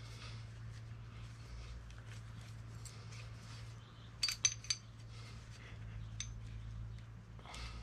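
Steel differential cage and gears handled in the hands, with light metal-on-metal handling noise and a quick run of three or four ringing metallic clinks about four seconds in, over a steady low hum.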